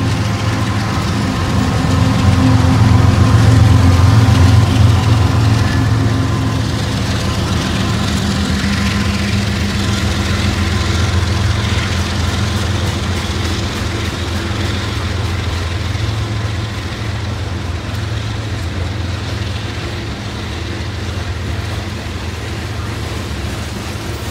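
Diesel locomotives of a BNSF freight train passing close by, their engine drone loudest in the first few seconds and then fading as they move away. A long string of grain hopper cars follows with a steady rolling rumble.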